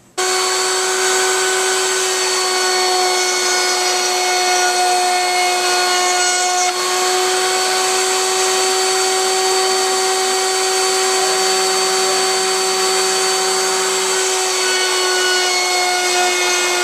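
Table-mounted router running at full speed with a steady high whine as boards are pushed along the fence past the bit, routing a decorative groove into their edges. The whine comes in suddenly at the very start.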